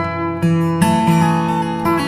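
Acoustic guitar music: plucked and strummed notes, with a new note or chord coming in about every half second.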